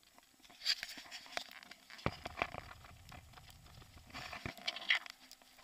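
Car tyres crunching and crackling over snow-covered road, heard from inside the car, with irregular clicks and a low rumble for a couple of seconds midway.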